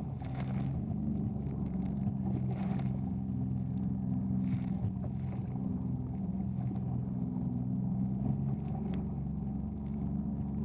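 Jet ski engine running steadily, with a few short splashes of spray off rough water.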